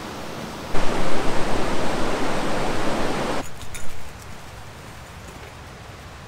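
Rushing water, the steady hiss of rapids or a fall, loud for about two and a half seconds and then cutting off sharply to a fainter, even hiss.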